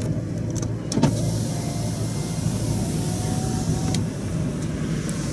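Van engine running and tyre noise heard inside the cab as it drives slowly down a lane, with a click about a second in and a rise in hiss after it.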